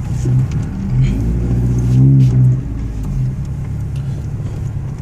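2010 Ford Ranger's exhaust through a Flowmaster 40 Series muffler, heard from inside the cab with the window open: a low, steady engine note with short rises in engine speed about a second in and a bigger one about two seconds in.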